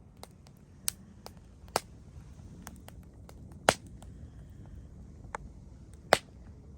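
Wood fire crackling with sharp, irregular pops, the two loudest about halfway through and near the end, over a low steady rumble.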